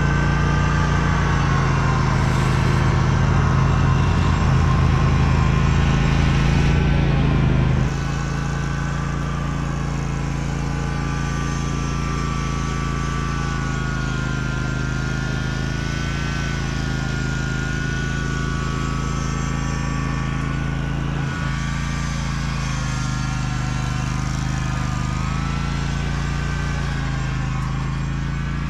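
Zero-turn mower engine running steadily as it tows a tine rake over torn-up sod, its pitch wavering a little. The sound drops slightly in loudness about eight seconds in.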